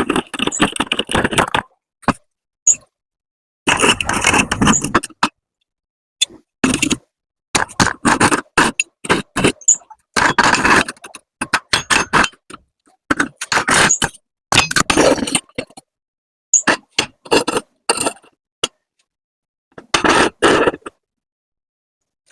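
Short bursts of metal scraping and clinking, one after another, with dead silence between them where the clips are cut together.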